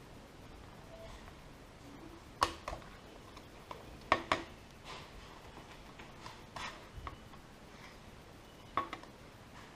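Small hard clicks and taps of plastic pry tools and a suction cup against an iPhone 5's glass and frame while the screen is levered up, coming irregularly with a cluster of louder ones about four seconds in.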